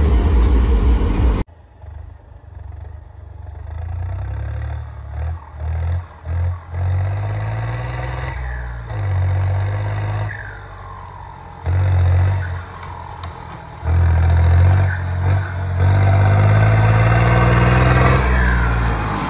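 Background music cuts off about a second and a half in. Then a turbocharged tractor diesel engine is revved again and again, each time swelling up and dying back. As some of the revs drop, a high turbo whistle falls away.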